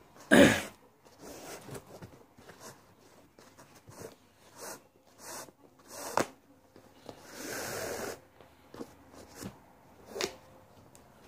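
Shoelace being pulled out through the eyelets of a leather trainer: scattered soft rustles and scrapes, with a longer swish about seven seconds in. A loud short burst about half a second in is the loudest sound.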